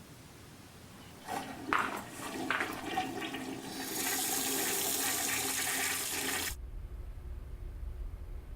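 Water sound effect: splashing and gurgling from about a second in, swelling into a loud rush that cuts off suddenly with a little under two seconds left, then a low rumble.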